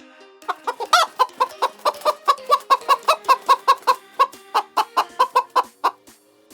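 Chicken clucking in a fast, even run of about five clucks a second, starting about half a second in and stopping near the end.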